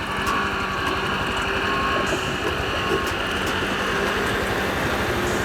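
Side-by-side UTV engine running steadily, with a dense low pulsing and no clear revving.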